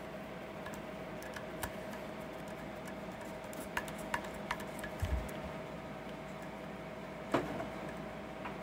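Scattered small metallic clicks and taps of a screwdriver working the little Torx screws into a crankshaft position sensor housing clamped in a vise. There is a dull thump about five seconds in and the sharpest click about seven seconds in, over a steady hum.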